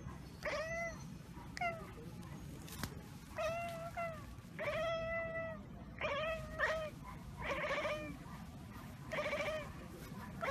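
Black fold-eared cat making a string of about eight short chirping, chattering calls, each bending slightly in pitch. This is the excited chatter of a cat that has spotted a bird or insect outside the window and cannot get to it.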